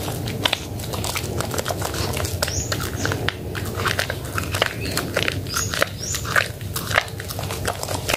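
Hands squeezing and squishing soaked bar soap in a bowl of thick lather: wet squelching with many quick, irregular crackles.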